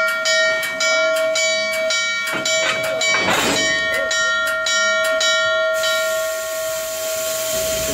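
Steam locomotive bell ringing steadily, about two strokes a second, signalling that the engine is about to move. It stops about six seconds in, with a short burst of hiss midway and a steady hiss after it.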